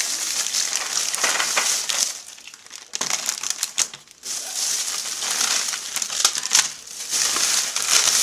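Candy packaging crinkled and handled, a crackly rustle in several bursts with short pauses between.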